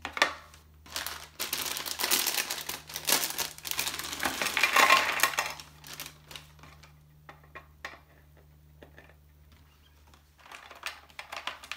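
Rustling and crinkling of paper and packaging with light clattering clicks of small plastic parts being handled, for about five seconds, then scattered soft taps and clicks.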